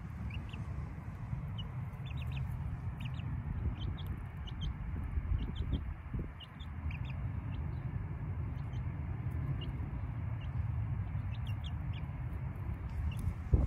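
Chickens making many short, high peeps while scratching and pecking for food, scattered irregularly over a steady low rumble.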